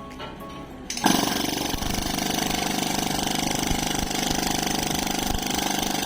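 A small motor running steadily with a fast, even pulsing, starting abruptly about a second in.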